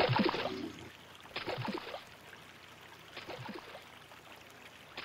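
Cartoon sound effect of water splashing and sloshing as an animal swims, in separate strokes about every one and a half seconds.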